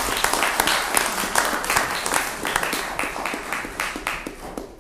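Audience applauding, the clapping thinning out and dying away toward the end.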